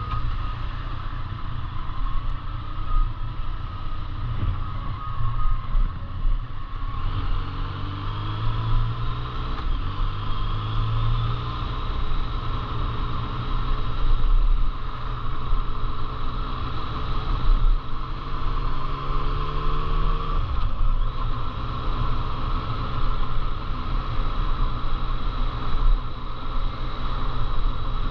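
A motor vehicle driving, its engine pitch rising twice as it accelerates, over steady road noise.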